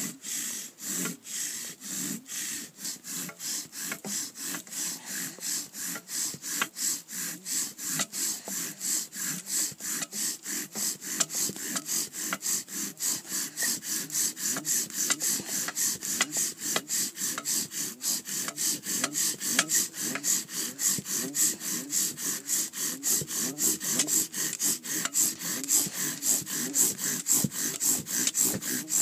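Bow drill running fast: a longbow's string spins a wooden spindle in a hearth board, topped by an ice bearing block, in quick steady back-and-forth strokes of about two to three a second, the spindle squeaking and grinding against the wood. The hearth is smoking as the drill builds an ember.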